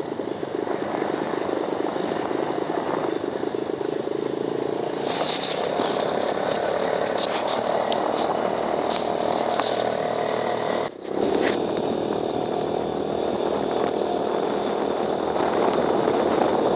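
Open off-road buggy's engine running steadily while driving, mixed with wind noise in the open cab, with a few short high squeaks around the middle. The sound briefly drops out about two-thirds of the way through.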